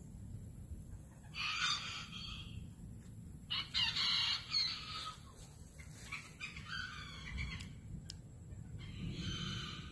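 A rooster crowing in four short calls, spaced a couple of seconds apart.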